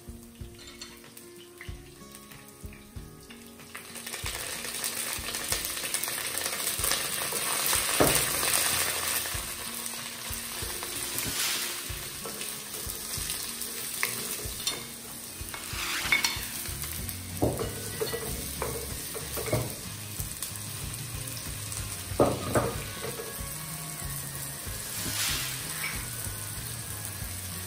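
Oil sizzling in a wok: garlic and ginger frying softly at first, then about four seconds in the sizzle grows much louder as sliced onions and green chillies go into the hot oil. A wooden spoon stirs and knocks against the pan now and then.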